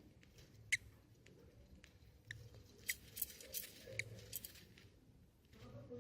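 Budgie chicks stirring in the nest: light, scattered clicks and scratches, one about a second in and a cluster of sharper ones a little after the middle.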